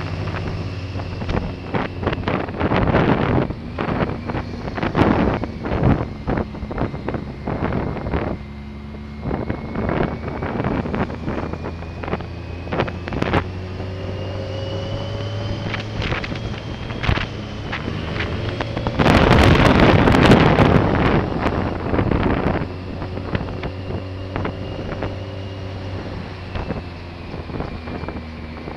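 Motorcycle engine running steadily while riding, with wind buffeting the microphone; a heavier gust of wind noise about two-thirds of the way through.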